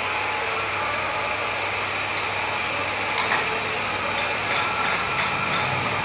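Electric pipe bending machine running steadily as it draws a metal pipe round its bending die, with a light click about three seconds in.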